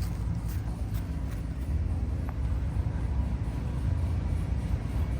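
A running engine with a steady low rumble.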